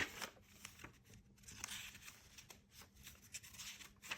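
Faint rustling and light clicks of paper being handled, with one sharper click right at the start.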